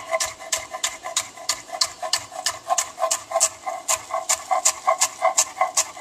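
A kitchen knife chopping celery on a cutting board: quick, even chops at about five a second.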